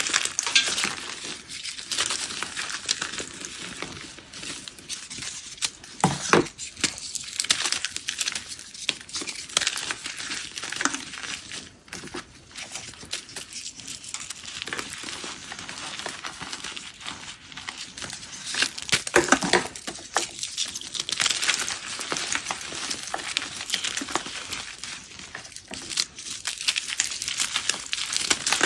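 Hands squeezing and crushing blocks of gym chalk into powder: crispy, powdery crunching and crumbling with a rapid crackle of small clicks as chunks break apart, in uneven squeezes with a few louder crunches.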